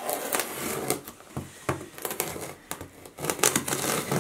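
Pocket knife slitting the packing tape along the seam of a cardboard box, the tape crackling and tearing in two long strokes, about a second each, with short clicks and scrapes of the blade and cardboard between them.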